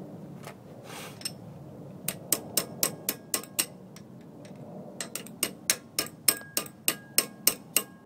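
Hammer striking metal in two runs of quick, evenly spaced blows, about three to four a second, each with a short metallic ring. The work is on a Jeep wheel hub being fitted.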